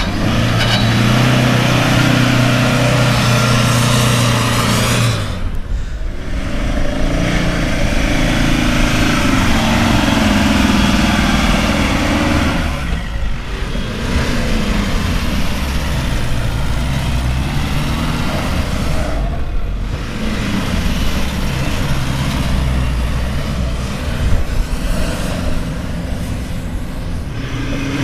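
Pickup truck engines revving and pulling as 4x4s climb a soft sandy track. The sound breaks off and changes three times, as if from separate takes.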